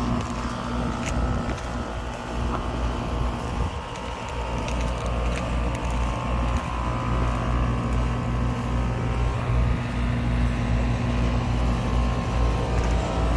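Old Amana 3-ton heat pump package unit running: its compressor and condenser fan make a steady, even hum.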